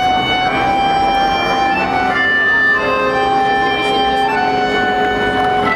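Sound-and-light show music with long held notes that shift every second or two, heard over a steady background hiss.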